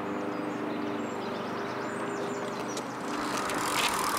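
Outdoor street ambience: a steady low hum under a wash of background noise, with a few faint high bird chirps in the first half and the noise swelling near the end.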